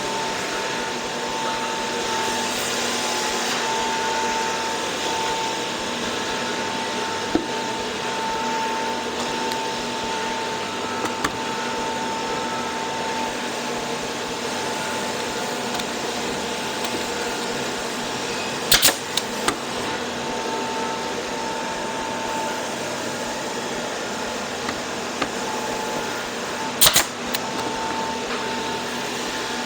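Steady whir of a running power tool, with two sharp pneumatic brad-nailer shots, one about two-thirds of the way in and another near the end.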